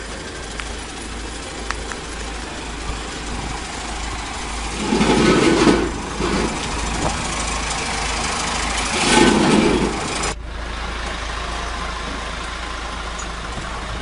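Heavy diesel engine idling steadily, with two louder surges about five and nine seconds in.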